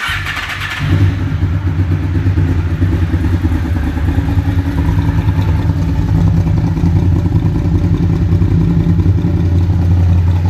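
Honda VFR800FI's V4 engine running at a steady speed, its low exhaust note holding even with no revving.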